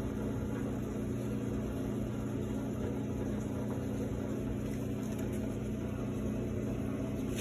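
Steady low machine hum with a few held low tones, unchanging throughout.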